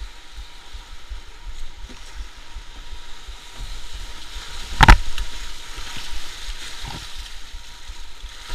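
White water rushing and hissing around a canoe running down a weir chute, with a low rumble. About five seconds in comes one loud, sharp hit, the loudest sound, and a smaller one near the end.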